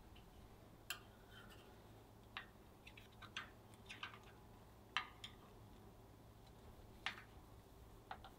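Scattered light clicks and taps of a wooden chopstick and fingertips against a metal baking pan as a thin, freshly baked cocoa langue de chat cookie is lifted and rolled around the chopstick.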